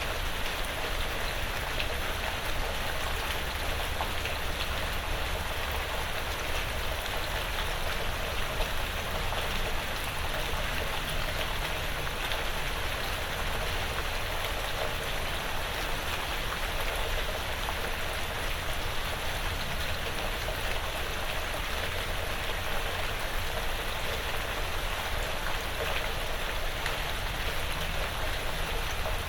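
Steady light rain pattering on a porch roof and the surrounding woods, with many small drop ticks over an even hiss.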